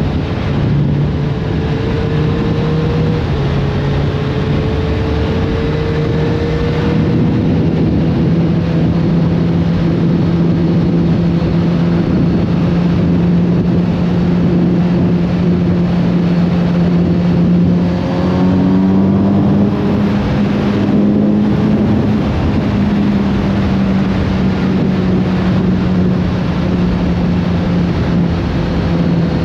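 Kawasaki Z900RS Café's inline-four engine running under way at steady road speed, over a haze of wind noise. The engine note holds fairly steady, rising slowly, with a brief shift in pitch about eighteen seconds in.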